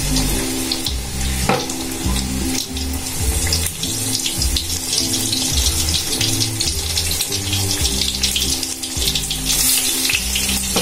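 Besan-battered pumpkin slices frying in hot oil in a steel kadai: a steady sizzle with fine crackles. Background music plays over it.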